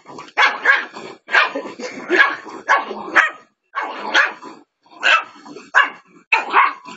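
Small dog barking over and over, about two barks a second.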